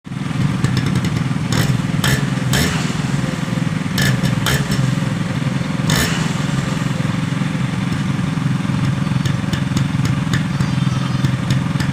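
Yamaha RX135's two-stroke single-cylinder engine idling steadily with a fast, even beat. A few sharp cracks sound over it in the first half.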